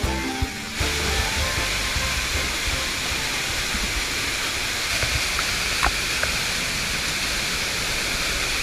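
Background music stops about a second in, giving way to the steady, even rush of a waterfall.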